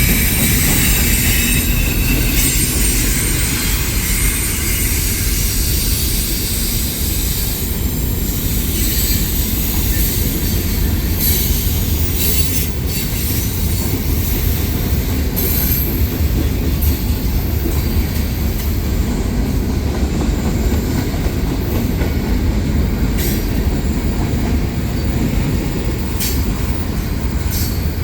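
Freight train rolling past close by: a steady heavy rumble of wheels on rail, with a high wheel squeal near the start and a few sharp clacks scattered through.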